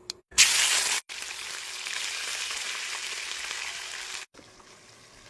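Food frying in hot rapeseed oil in a pan. There is a loud sizzle burst about half a second in, then steady sizzling, which drops to a faint hiss about four seconds in.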